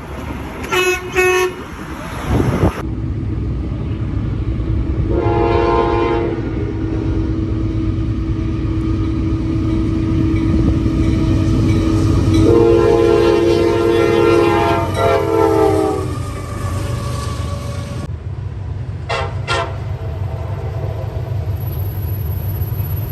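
Train air horn sounding long chord blasts, twice, over the heavy low rumble of a passing train, with short horn toots in the first second or so and again near the end.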